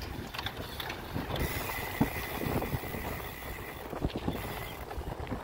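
Mountain bike rolling over a rough street, heard from a chest-mounted phone: wind buffeting the microphone over the rattle of the bike, with scattered clicks and knocks.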